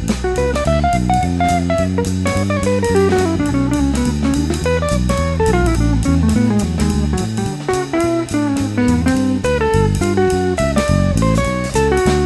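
Background music: a guitar-led instrumental with drum kit keeping a steady beat.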